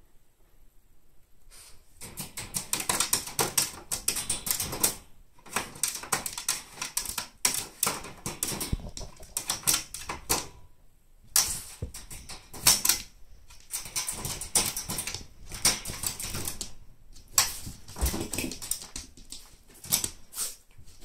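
Rapid, irregular clicking and rattling at a wire pet cage as a miniature pinscher noses and sniffs at it, starting about two seconds in.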